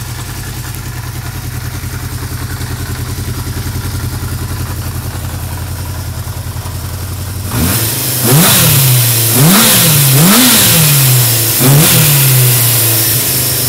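Honda CB550K's air-cooled inline-four engine idling steadily through its four-into-four exhaust. About seven and a half seconds in, the throttle is blipped four times, each time the revs rising and falling back to idle.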